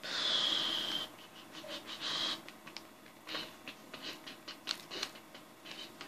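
Plastic layers of a 3x3 Rubik's cube being turned by hand: a scatter of short clicks through the second half. There is a breathy exhale in the first second and another about two seconds in.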